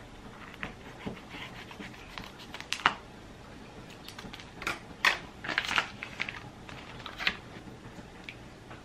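Kitchen scissors snipping open a vacuum-sealed plastic pack of raw salmon, with the stiff plastic crinkling as it is pulled apart: an irregular run of sharp crackles and snips, loudest around the middle.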